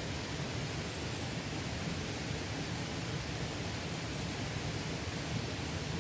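Mountain stream water rushing and splashing steadily over rocks.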